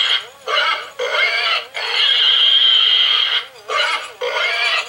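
Christmas pig toy sounding its recorded pig noises in several phrases with short breaks between them.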